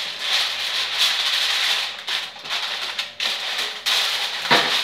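Aluminium foil crinkling as it is crumpled and pressed into a metal baking tray, a continuous irregular crackle with a few sharper crackles near the end.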